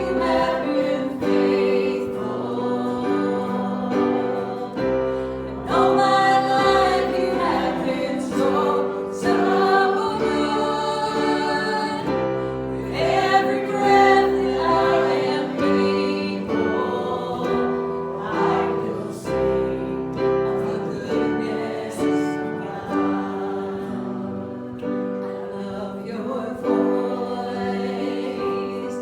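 A congregation or choir singing a worship song with keyboard accompaniment, held chords throughout.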